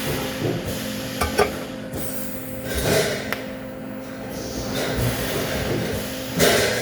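TIG welding arc hissing and sizzling steadily over a steady electrical hum, with a few sharp metallic clinks.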